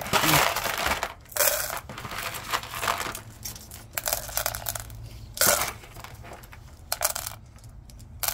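Ceramic tumbling-media pellets dropped by hand into a rock-tumbler barrel, clattering and clinking onto the agates and stones inside. It comes as a run of uneven bursts, the loudest at the start and about five and a half seconds in.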